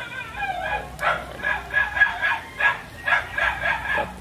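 Dog yapping over and over, short high-pitched barks coming about three a second.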